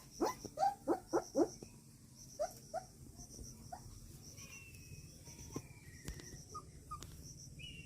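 Young puppies whimpering: a quick run of short, high, rising squeaks in the first second and a half, then a few scattered squeaks and faint whines.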